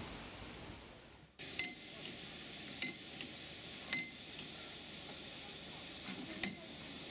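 Sharp metallic clinks of the coupling gear between a narrow-gauge steam locomotive and its carriage as it is worked by hand. There are four of them, spaced a second or more apart, each ringing briefly, over a steady hiss.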